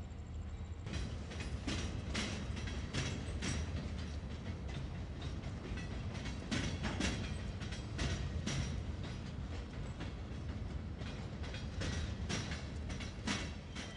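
Freight train rolling slowly past close by: a steady low rumble of the cars, with irregular clicks and clanks of the wheels over the rail joints.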